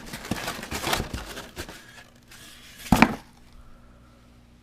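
A cardboard box being opened by hand: scraping and rustling of cardboard, then one loud sharp knock about three seconds in.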